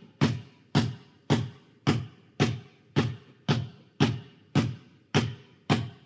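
A ball bouncing at a steady pace, about two bounces a second, each bounce a sharp hit with a short, low, hollow boom.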